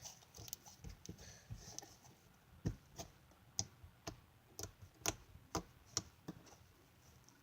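Slime being squeezed and poked by hand: soft crackling, then a run of sharp clicking pops about two a second that stops about six seconds in.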